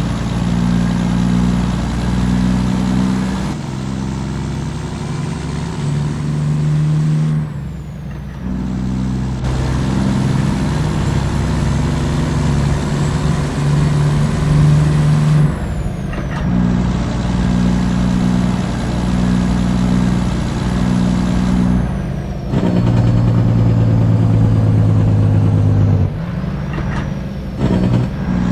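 Volvo FH truck's diesel engine running loud through a straight-through exhaust. The low engine note holds steady for a few seconds at a time, then steps to a new pitch several times, with a short drop in level about eight seconds in.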